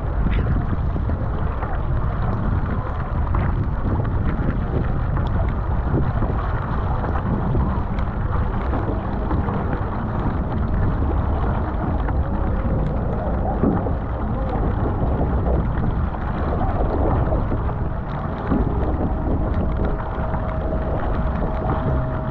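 Wind buffeting the microphone and choppy water slapping and rushing along a surfski's hull as it is paddled through chop, with paddle splashes. A faint steady hum comes in near the end.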